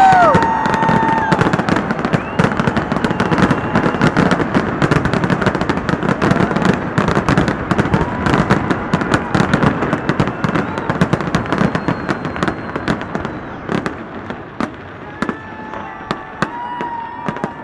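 Fireworks display: dense crackling and rapid popping bangs of aerial pyrotechnics, thinning out and growing quieter in the last few seconds.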